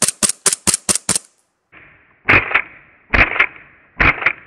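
Novritsch SSP1 CO2 gas-blowback airsoft pistol firing: a fast string of about six sharp shots in the first second, then after a short pause three quick double shots.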